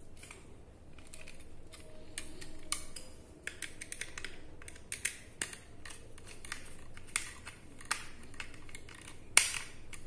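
Screwdriver working the terminal screws of a plastic 15 A three-pin switch-socket as the green earth wire is clamped: irregular small clicks and scrapes of metal tool on screw and handled plastic, the loudest a sharp click near the end.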